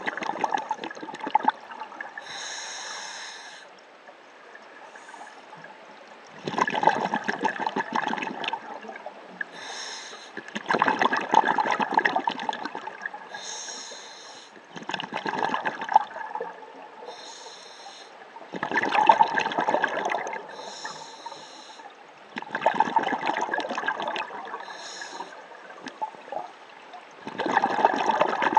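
A scuba diver breathing underwater through a regulator. A bubbling exhalation comes every four seconds or so, with a short, higher-pitched hiss of the inhale in each gap.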